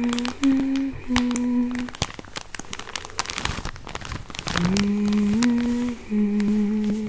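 A woman humming a slow tune in long held notes, with a pause of about two and a half seconds in the middle. Throughout, a package is crinkled and squeezed close to the microphone, giving sharp crackly clicks.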